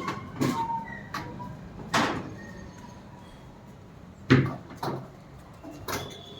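A series of sharp knocks and clunks, like a door or lid being handled, about half a dozen spread out, the loudest about four seconds in.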